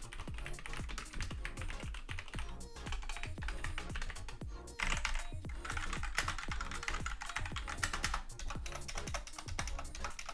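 Fast typing on mechanical gaming keyboards, Gateron red linear switches and SteelSeries OmniPoint adjustable switches, a dense run of keystrokes that is not very clicky. Background music plays underneath.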